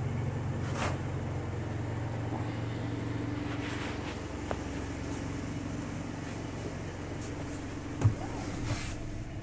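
2004 Chevrolet Colorado's 3.5-litre inline-five engine idling steadily, with one sharp knock about eight seconds in.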